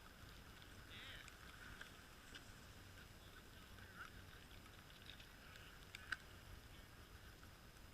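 Faint, sparse bird calls: a few short high chirps, one brief falling call about a second in, and a sharp click about six seconds in, over quiet outdoor background.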